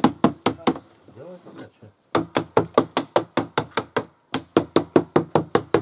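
Rapid sharp knocks, about five a second in three runs, struck at the track and running gear of a small tracked motorized snow tow.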